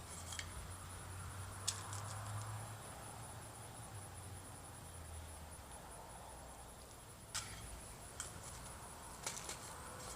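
Quiet scattered clicks and taps from handling a .177 air rifle and pellet while getting ready to shoot, over a low hum that fades out about halfway. There is no shot.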